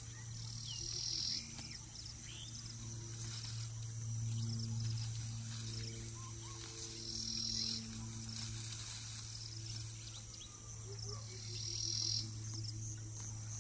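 Crickets trilling in buzzy bursts of about a second, three times, each a few seconds apart, over a steady low hum.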